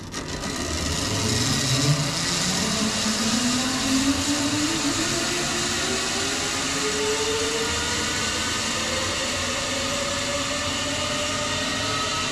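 Zipline trolley pulleys running along the steel cable as the rider speeds away, a steady whirring hiss with a whine that climbs slowly and smoothly in pitch as the trolley gathers speed. It swells up about a second in.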